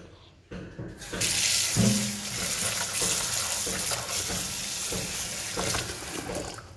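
Kitchen tap running into a pressure cooker, filling it over cracked wheat and urad dal while a hand swirls the grains to wash them. The stream comes on about a second in and eases off near the end.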